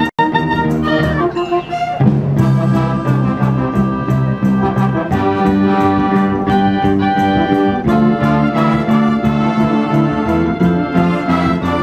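A school wind band playing a medley of love songs, trumpets and trombones to the fore over sustained chords, with a split-second dropout in the sound at the very start.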